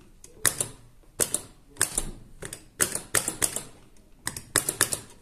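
Momentary (non-latching, doorbell-type) wall push-button switches clicking as they are pressed repeatedly to toggle an impulse relay that switches a lamp. There are about a dozen sharp clicks, several in quick pairs.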